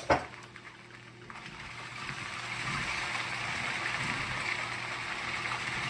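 Beef stew just thinned with broth, being stirred with a wooden spoon in a large aluminium pot: a steady wet sloshing and bubbling that builds up after a quiet moment. A sharp knock sounds right at the start.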